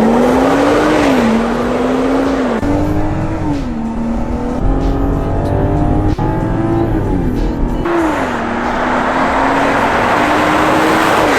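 Land Rover Defender P400's 3.0-litre turbocharged straight-six running through a Milltek non-resonated cat-back exhaust, accelerating hard: the note climbs and drops sharply at each upshift several times. Part way through the pitch falls as it slows, then it pulls up through the gears again.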